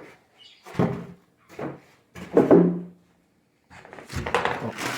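Styrofoam packing blocks being pulled out of a cardboard box: four short knocks and scrapes, one with a brief squeak, then from about four seconds in a continuous rustle of handling packing material.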